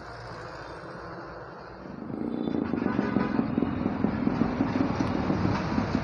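Street traffic with container trucks and motorcycles; about two seconds in, engine noise from a passing vehicle comes close and the traffic sound gets much louder.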